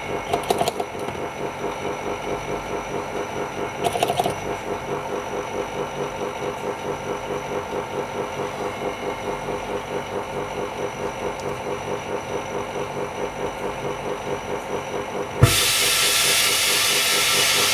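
A small workshop pump or motor running with a steady pulse of about three beats a second, with a couple of light clicks. Near the end a loud, even rush of air hiss starts suddenly and keeps going.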